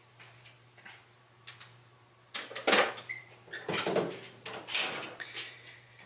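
Tools and parts being handled and set down: a run of rustles and clatters from about two and a half to five and a half seconds in, over a steady low hum.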